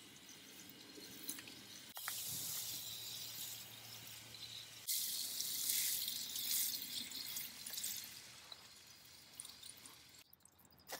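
Garden hose watering wand spraying water onto a potted plant, a steady hiss of spray. It starts abruptly about two seconds in, grows louder at about five seconds and fades away near the end.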